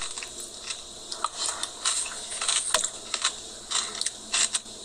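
Eating sounds from someone chewing a Blizzard with crispy pieces in it: scattered small clicks and crunches.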